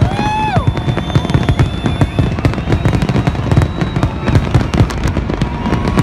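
Aerial fireworks shells bursting one after another: a dense, continuous crackle of small pops over repeated deep booms.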